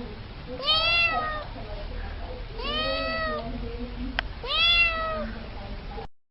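A cat meowing three times, each meow a drawn-out call that rises and falls in pitch. The sound cuts off abruptly near the end.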